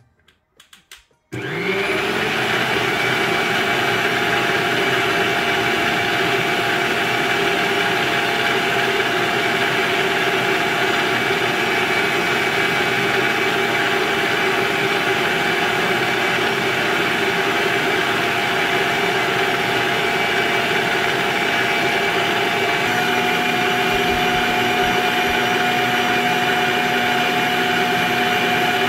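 Electric stand mixer starting about a second in and running steadily, its wire whisk beating egg whites in a stainless steel bowl: a loud, even motor whir. About three-quarters of the way through its tone shifts.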